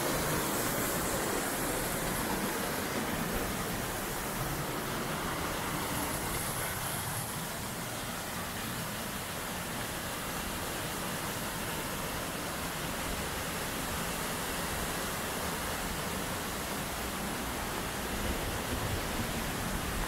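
Steady rush of a waterfall and mountain stream cascading over rocks, an even hiss with no breaks.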